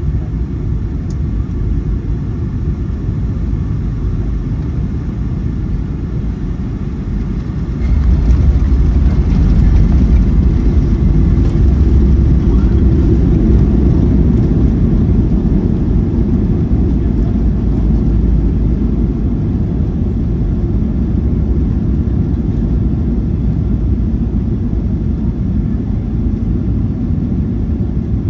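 Cabin rumble of a Boeing 737-900ER on landing, from its engines and the rush of air and runway. The rumble grows suddenly louder and deeper about eight seconds in, then slowly eases.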